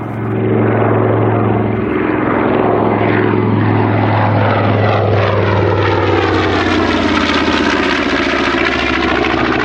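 North American B-25 Mitchell's two Wright R-2600 Cyclone radial engines droning in a low flyby. The sound grows louder about half a second in, then holds steady, and its pitch sinks slightly in the second half as the bomber passes.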